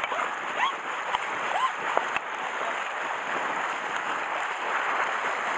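Sea water washing and sloshing steadily against a rocky shoreline, with a couple of sharp clicks.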